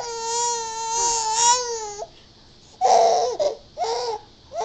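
Baby's long, steady, cry-like wail for about two seconds, falling off at the end. After a short pause come two short laughing bursts: the infant's first laughs.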